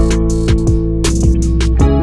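Background music with a steady beat: guitar over drums and bass.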